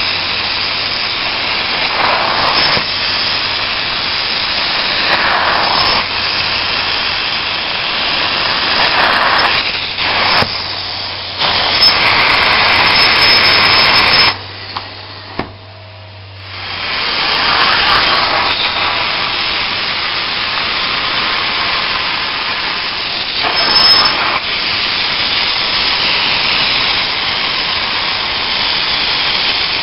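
Truck-mounted steam-cleaning extraction wand working over upholstery fabric: a loud, steady rushing hiss of suction and spray that swells with each pass. It falls away for a couple of seconds about halfway through, then starts again.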